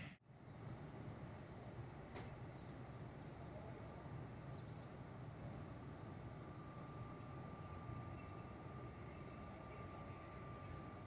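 Diesel-electric DE6400 freight locomotive approaching slowly, a low steady engine rumble at a distance, with birds chirping. A thin steady whine joins about six seconds in.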